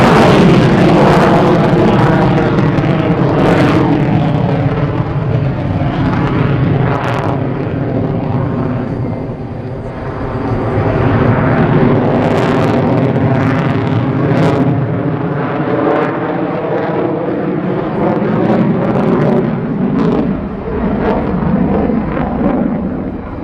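Loud jet noise from the F-35A Lightning II's single F135 afterburning turbofan as the fighter manoeuvres overhead. The noise has a phasing quality, its pitch sweeping up and down as the jet moves, and it eases briefly about ten seconds in.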